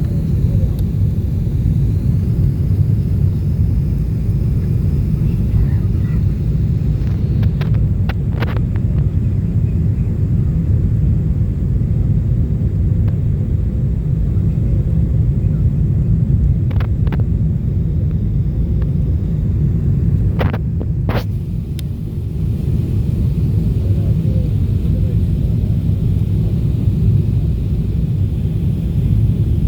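Cabin noise of a Boeing 777-300ER descending on approach: a steady, loud low rumble of engines and airflow, with a few brief clicks near the middle.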